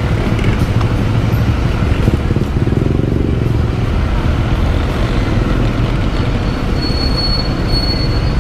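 Motorbike engine running while riding in traffic, heard through a camera mounted on the bike. The engine note rises briefly about three seconds in, and near the end a thin high squeal sounds twice.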